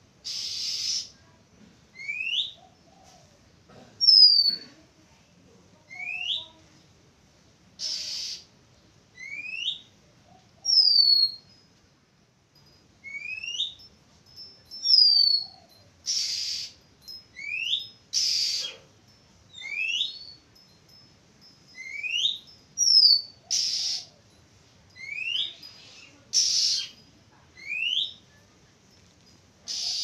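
Oriental magpie-robin calling: a rising whistled note repeated about every two seconds, each paired with a short higher falling note. Several short harsh rasping notes are mixed in.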